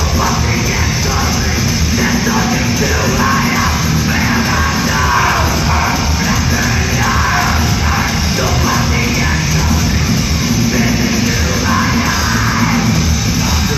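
Heavy metal band playing live and loud: drums, guitars and bass with a yelled lead vocal, heard from among the crowd.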